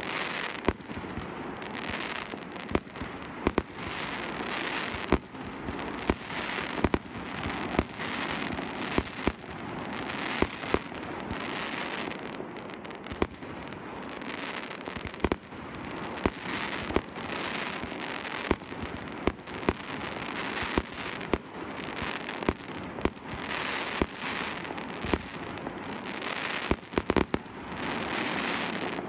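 Fireworks display: aerial shells bursting in sharp bangs about once a second at uneven intervals, over a steady rushing noise, with a quick cluster of bangs near the end.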